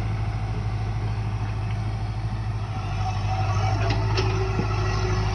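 Diesel engine of a JCB 3DX backhoe loader running steadily, with a low hum that grows a little louder about three seconds in.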